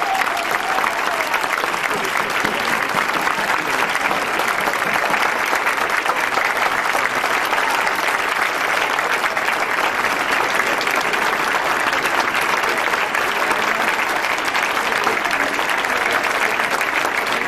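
An audience applauding, a dense, steady clapping of many hands, as the last note of the live tango orchestra dies away in the first second.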